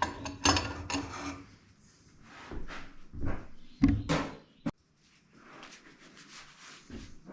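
Irregular knocks, clicks and clatter of things being handled during setup of a blade sharpener, with the loudest knock about four seconds in and a sharp click just after it.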